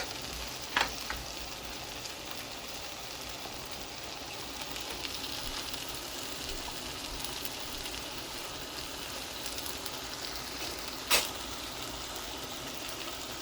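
Lamb pieces frying in oil and curry masala in a pot: a steady sizzle. Two sharp knocks break through it, a small one about a second in and a louder one near the end.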